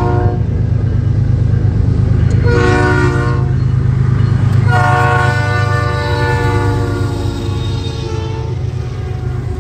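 Norfolk Southern lead locomotive sounding its multi-chime air horn as it approaches and passes: a blast ending just after the start, a short blast about two and a half seconds in, then a long blast from about five to eight seconds. Under the horn, the diesel locomotives rumble steadily as the train rolls by.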